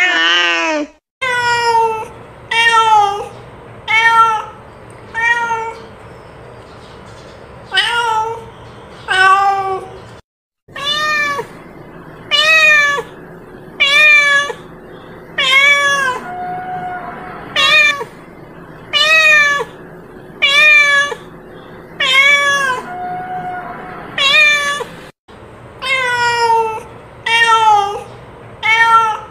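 A cat meowing over and over, short meows about one a second, each rising and then falling in pitch.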